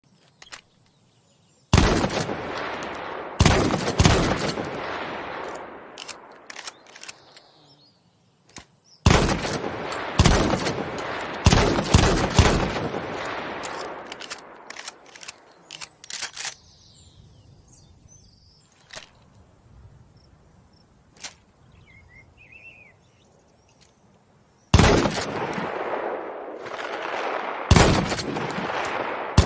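Winchester Model 1897 pump-action shotgun firing a series of loud shots in three groups, each shot trailing off in a long echoing decay, with sharper small clicks between the shots.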